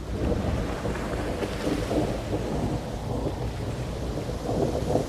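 Low rumbling with a grainy crackle over it, swelling about two seconds in and again near the end.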